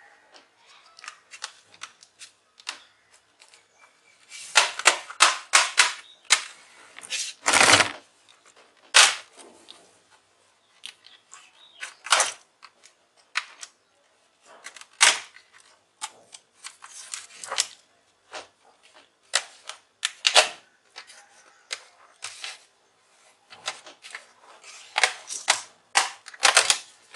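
Plastic clips of an HP Notebook 15 laptop's bottom casing clicking and snapping loose as the casing is pried off: many sharp, irregular clicks, some in quick runs, with one louder snap a few seconds in.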